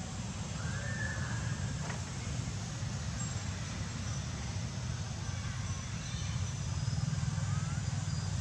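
Steady low rumble under an even outdoor hiss, growing a little stronger near the end, with a few faint high chirps.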